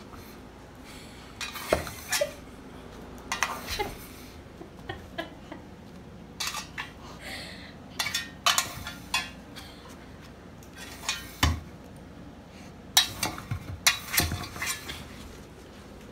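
Metal six-cup muffin tin clanking and rattling on carpet in irregular bursts as a dog noses and paws at it, knocking the tennis balls in its cups about to get at treats hidden beneath them.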